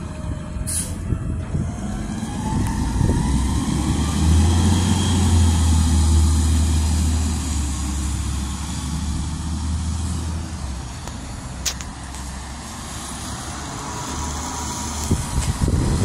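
Front-loader garbage truck's natural-gas engine pulling away with a rising whine, then a deep, steady rumble for several seconds that slowly fades. A sharp click comes just past the middle. Near the end a faint steady tone is heard as an Amazon electric delivery van rolls past.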